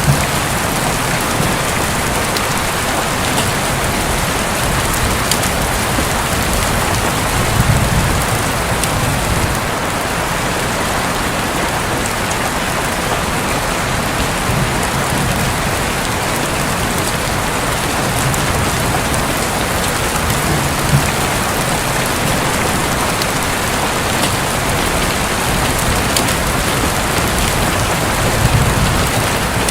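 Heavy rain falling steadily on a roof, a dense, even hiss. Low rumbles of thunder swell up twice, about a third of the way in and near the end.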